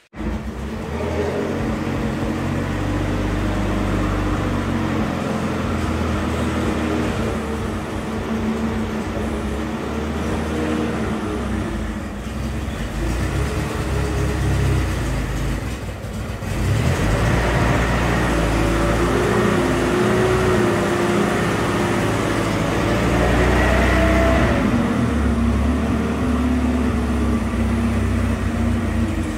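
Toyota forklift's engine running, its pitch wavering as it drives and works. It picks up speed and gets louder about halfway through, and again a little later.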